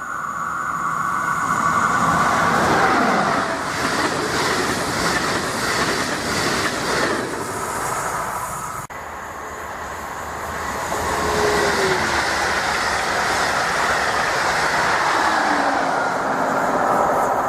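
A train passing: the noise of the railcars builds up and holds strong. About nine seconds in it breaks off abruptly and starts again, then swells and holds until the end.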